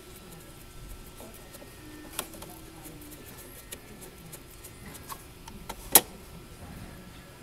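Small clicks and taps of hands handling a 3D printer's plastic interface parts (ribbon-cable connector, nylon bolts) against its plywood frame, with a sharp click about two seconds in and a louder, sharper click about six seconds in.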